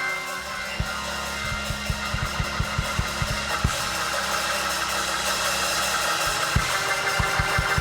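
A church congregation clapping and shouting praise over worship music, with rapid low drum thumps and a sustained low bass note. The crowd's shouting swells about halfway through.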